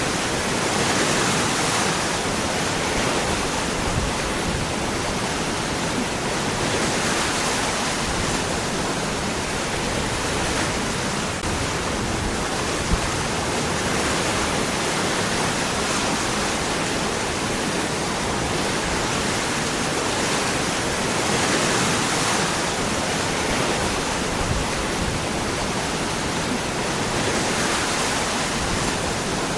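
Waterfall: water pouring down among rocks in a steady rush that swells a little now and then.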